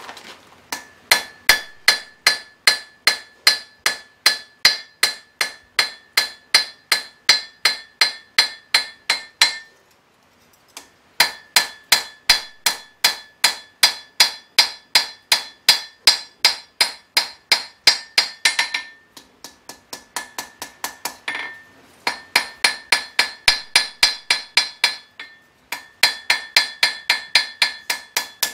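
Blacksmith's hand hammer striking red-hot steel on an anvil, in quick runs of about three blows a second, each blow ringing with a clear metallic tone. The hammering breaks off briefly a few times, with a stretch of lighter blows about two-thirds of the way through.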